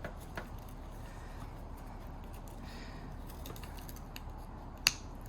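Small clicks from handling the third brake light's push-in bulb and its plastic bulb holder, faint at first, with one sharper click near the end.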